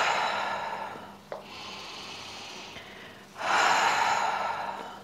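A woman breathing deeply and audibly while holding a yoga hip stretch: two loud, long breaths about three seconds apart, with quieter breathing between.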